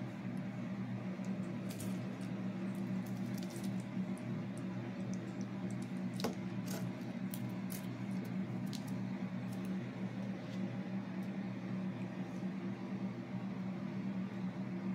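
Escabeche sauce simmering in a pan: scattered small pops and squishy sounds, the sharpest about six seconds in, over a steady low hum.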